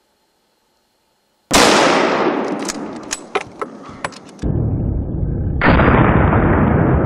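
A single hunting rifle shot about a second and a half in, very loud and sudden, its echo rolling away over the next few seconds with a few sharp cracks in it. A loud, steady noise sets in about halfway through and carries on.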